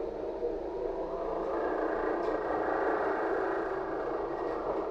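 Cabin noise inside a LiAZ-5280 trolleybus on the move: a steady rumble of running gear and road. A faint higher whine comes in about a second and a half in and fades out near the end.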